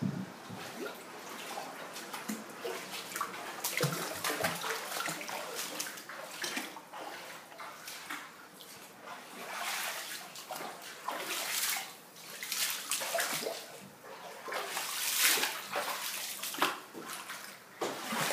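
Floodwater splashing and sloshing in irregular bursts, louder at times.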